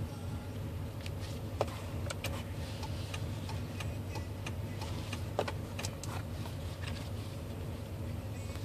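Turn-signal/hazard flasher ticking from the cluster in a repeated tick-tock, over the steady low hum of the pickup's engine idling.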